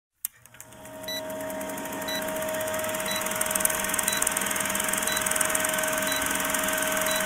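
Old-film countdown sound effect: a film projector's steady whirring clatter over a constant hum, fading in during the first second, with a short beep about once a second in time with the count.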